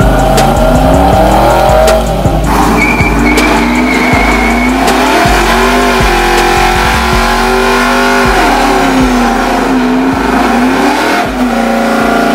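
Lowered Chevrolet Silverado pickup's V8 revving hard in a burnout, its pitch rising and falling again and again, while the spinning rear tyres squeal.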